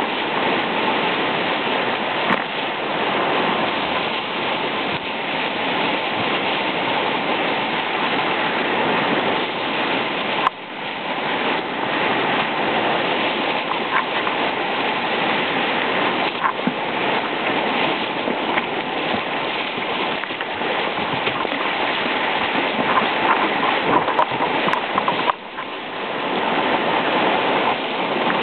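Whitewater rapids rushing and splashing around a kayak's bow, heard close up from a helmet-mounted camera. The steady rush dips briefly about ten seconds in and again near the end.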